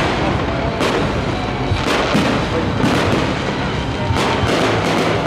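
Fireworks display: aerial shells bursting in a string of sharp bangs about a second apart, coming in a quicker cluster near the end.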